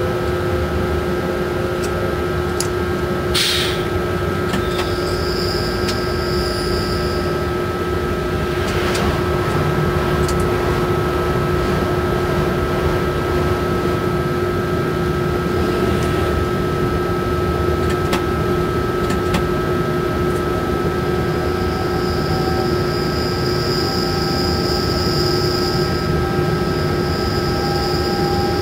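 Cab noise of an SNCF BB 27300 electric locomotive under way: a steady running rumble with constant whining tones and a few sharp clicks. A faint whine rises slowly near the end.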